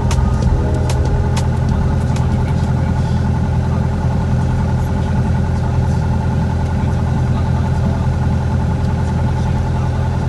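Light aircraft's piston engine droning steadily, heard from inside the cockpit, with a few sharp clicks in the first second and a half.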